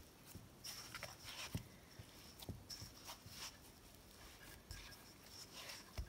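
Hands kneading sticky homemade salt dough in a stainless steel mixing bowl: faint, irregular soft pats and squishes with occasional light knocks.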